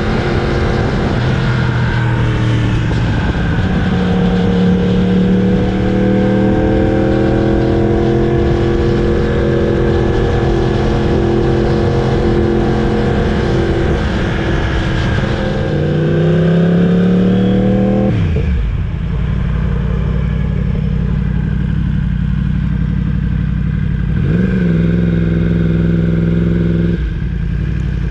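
Yamaha R1's crossplane inline-four engine running under way at a steady pitch, then rising in pitch as the bike accelerates, followed by a sharp fall. It settles lower with one short rise and fall, then drops again near the end.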